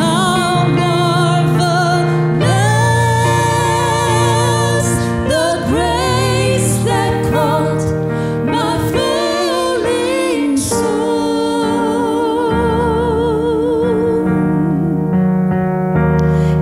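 Two women singing a gospel song in harmony over a keyboard accompaniment, with long held notes and vibrato.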